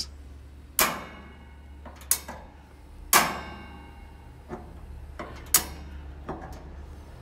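Cadac Entertainer gas barbecue's igniter clicking as the burners are lit, six sharp snaps a second or so apart, some louder than others, over a faint low hum. It takes several tries before a burner catches.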